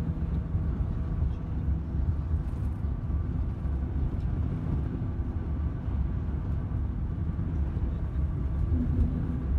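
Steady low rumble of a moving vehicle's engine and tyre noise, heard from inside the cabin.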